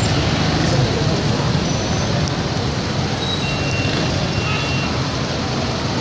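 Steady street traffic: engines and tyres of passing jeepneys and cars, a dense even rumble with no single vehicle standing out.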